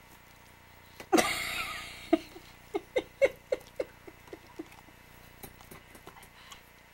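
Beagle licking the wire door of its crate: a sharp rattle of the door about a second in, then a run of short licking taps on the wires, about three a second, fading out.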